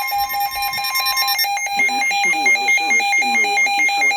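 Emergency Alert System alert tones. A steady high tone stops about a second and a half in, over a rapidly pulsing beep that keeps going.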